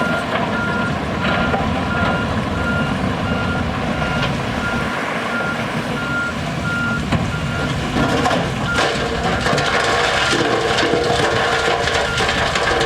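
Back-up alarm on a piece of heavy earthmoving machinery beeping in a steady repeating single tone while the machine reverses, over the running of its diesel engine. From about two-thirds of the way in, louder clattering and scraping of the machine at work joins in, and the beeping stops near the end.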